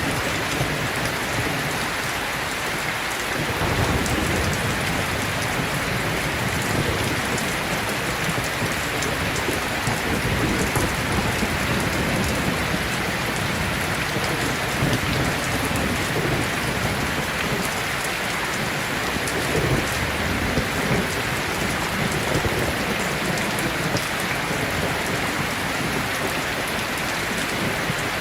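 Steady heavy rain, with a low rumble underneath that comes in about three seconds in and swells and fades through the rest.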